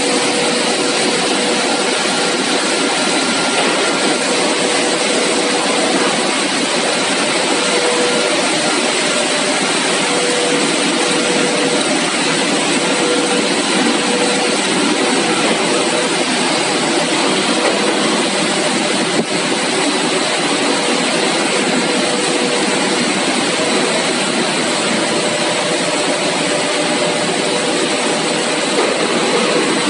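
Three-layer CPP cast film extrusion line running: a steady, loud machine and air noise with a faint high whine and a fainter hum that wavers in and out.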